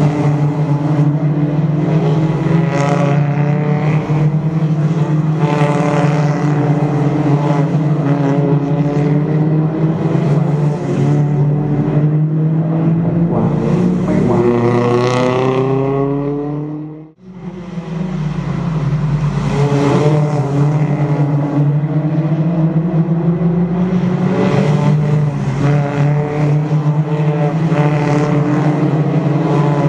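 Toyota Corolla Altis race cars' engines revving through a corner, pitch rising and falling as the cars brake, shift and accelerate past, over a steady low hum. The sound drops out sharply for a moment a little past halfway.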